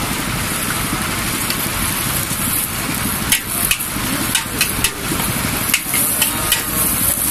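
Kuey teow noodles sizzling in a wok over a gas burner's steady rush, with a metal spatula clanking and scraping against the wok several times in the second half.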